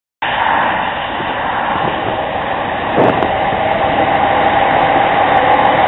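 Small diesel shunting locomotive's engine running, cutting in abruptly. About three seconds in there is a brief knock, and the engine runs a little louder from then on.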